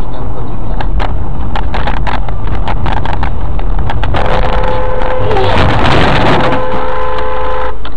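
Loud road and engine noise inside a moving car, with many sharp clicks and rattles. About four seconds in, a horn blares steadily for about three and a half seconds as a truck passes close alongside, then cuts off suddenly.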